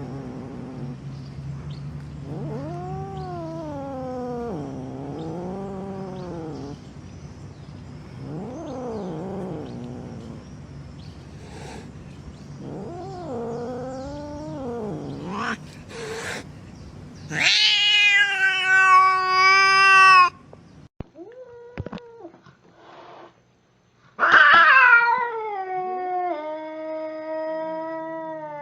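Domestic cat caterwauling: long, low, wavering growl-yowls that rise and fall in pitch, then two loud, high yowls that slide downward, the threatening cries of an agitated cat.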